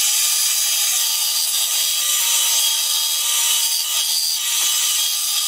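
Power tool cutting or grinding steel, a steady rasping noise with a high whine in it, while the katana's guard is being shaped.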